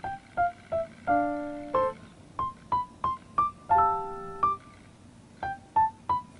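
Light background music on a keyboard: short, separate notes a couple of times a second, with a held chord about a second in and another about four seconds in.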